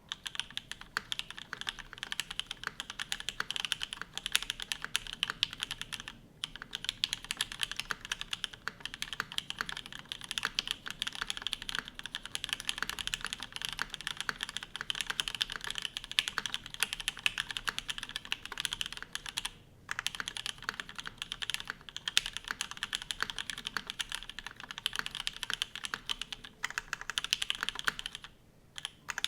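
Continuous fast typing on a Matrix Lab Hiya mechanical keyboard: lubed and filmed Gateron X linear switches in a top-mounted aluminium plate, with GMK keycaps, giving a dense stream of key clacks. The typing pauses briefly a few times.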